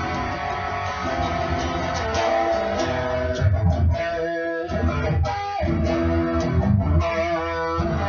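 Electric guitar being played in a rock jam, ringing notes and riffs with a bass line underneath.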